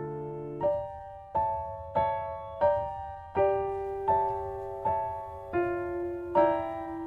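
Background piano music: a slow, gentle melody of single sustained notes, about one and a half a second, each struck and fading.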